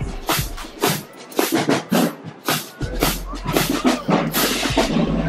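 A marching band playing, with its drums beating a steady, driving rhythm of about two strokes a second, along with crowd voices.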